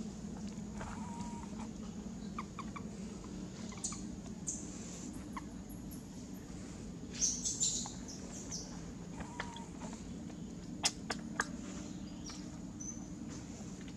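Outdoor forest ambience with a steady low hum, a cluster of short high-pitched chirps or squeaks about halfway through, and a few sharp clicks near the end.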